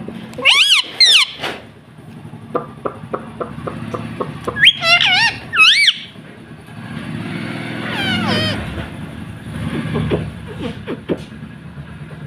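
Indian ringneck parakeet giving loud, wavering screechy calls in three bouts, about half a second, five seconds and eight seconds in, with a run of soft clicks between the first two.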